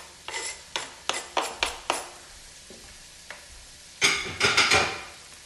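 A knife scraping sliced mushrooms off a plastic cutting board into a frying pan: a quick run of short scrapes and taps, over light sizzling from the pan. About four seconds in comes a louder burst of clattering lasting under a second.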